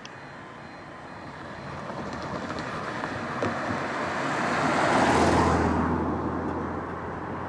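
A Mini car driving past close by, its tyre and engine noise swelling to a peak about five seconds in and then fading.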